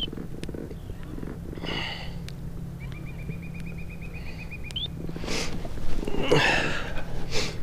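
Steady low hum of the kayak's electric trolling motor, after the call to slow the kayak down. About three seconds in comes a short high trill of rapid ticks ending in an upward chirp, and in the second half there are several bursts of rustling and handling noise.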